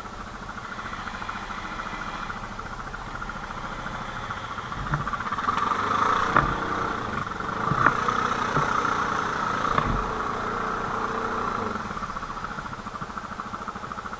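Quad bike engine running at low speed, louder for a few seconds in the middle, with a few sharp knocks.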